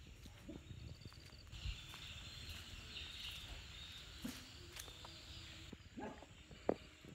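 Faint outdoor background with a low rumble of wind on the microphone and a faint high hiss through the middle. Near the end there are two short, faint animal calls.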